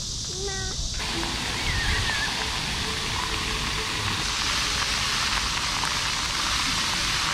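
Floor-fountain water jets spraying and splashing onto paving, a steady rushing hiss that begins about a second in. A brief high gliding call rises over it near two seconds.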